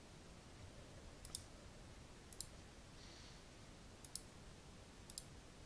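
Computer mouse button clicking: four quick double-clicks, roughly a second apart.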